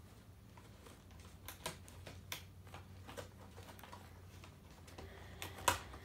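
Faint scattered clicks and crinkles of a plastic-windowed doll box as the doll is worked loose inside it, with a couple of sharper clicks near the end.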